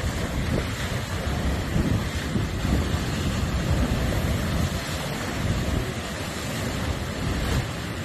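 Strong wind buffeting the microphone in gusts, over rough storm waves splashing against a pier's pilings.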